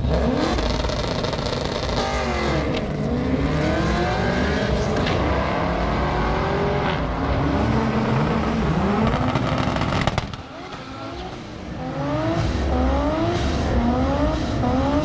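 Drag-race cars accelerating hard down the strip, engine pitch climbing and falling back in steps as they shift through the gears. About ten seconds in it fades briefly, then another car pulls away with the same rising, stepped pitch of quick upshifts.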